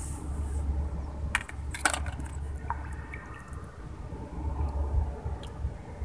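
A hooked tilapia being lifted from the pond, giving a few short wet slaps and clicks about one to two seconds in, over a low steady rumble.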